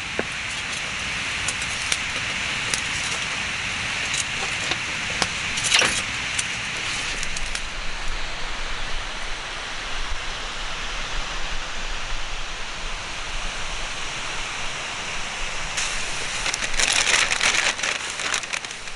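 Wood campfire burning with a steady hiss and scattered crackles and pops, with a dense run of crackling clicks near the end.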